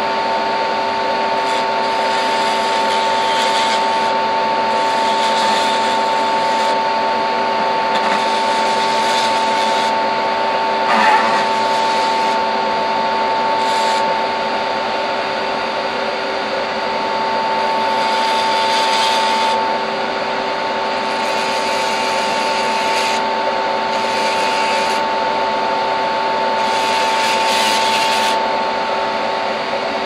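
Steady motor whine of a small rotary tool and a nail-salon dust-extractor fan running together. Grinding hiss comes and goes every second or two as the bit shaves brass off a diecast model's wheel and axle parts.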